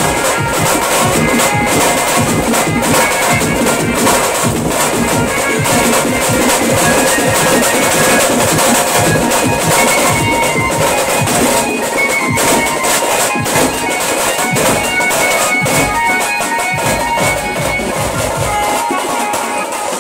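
Pad band playing teenmaar music live: loud, rapid, dense drumming under a Casio keyboard melody of held notes.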